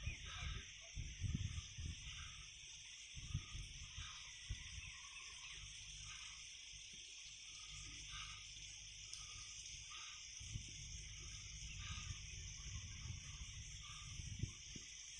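Wind buffeting the microphone in low, irregular gusts, strongest at the start and again in the last few seconds, over a steady high hiss with faint short chirps scattered through.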